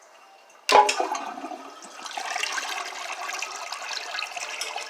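A toilet being flushed: a sharp clunk about a second in, then water rushing through the bowl.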